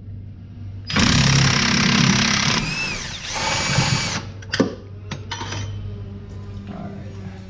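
Cordless impact wrench loosening a bolt on the transmission: it hammers for about a second and a half, whines down, then runs again briefly with a steady whine. A few sharp clicks follow.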